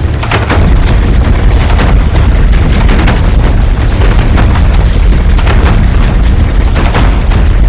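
Loud, continuous low rumble with many sharp bangs and cracks.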